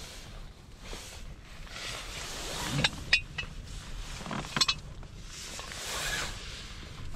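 Metal cookware being handled: a few sharp clinks about three seconds in and a couple more a little past the middle, from a hot-sandwich maker and a small gas stove, over a soft background hiss.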